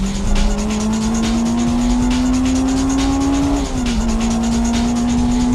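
Interior sound of a Honda Integra DC5 race car's four-cylinder engine under hard acceleration, its pitch climbing steadily, then one quick upshift about two-thirds through before it climbs again.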